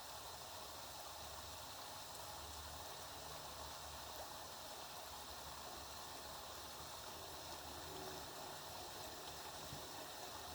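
Steady rain falling, an even hiss without distinct drops or breaks.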